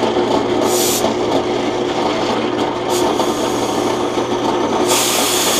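Drill press motor running steadily with an endmill milling a pocket in a pine block, broken by short blasts of compressed air from a blow gun clearing the sawdust: a brief one about two-thirds of a second in, another about three seconds in, and a longer one near the end.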